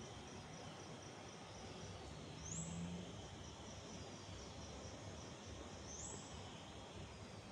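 Insects chirping in a steady, fast pulsing trill, with two short high calls that rise sharply, about three and a half seconds apart. A brief low hum sounds a little over two seconds in.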